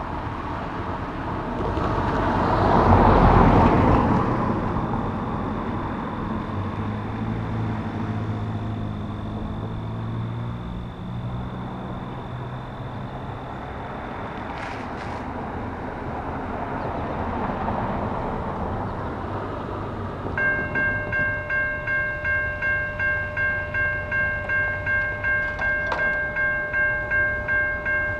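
A car passes close over the crossing about 3 seconds in, the loudest moment. About 20 seconds in, a railway level-crossing bell starts ringing rapidly, about two strikes a second, as the crossing signals activate to warn of an approaching train.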